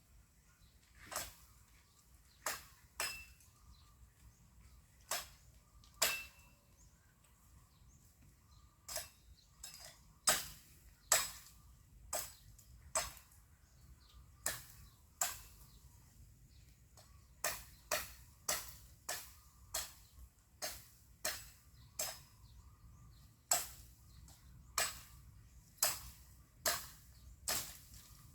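Bamboo being hacked with a blade: a series of sharp, irregular chopping strikes, roughly one a second, some with a short ringing note.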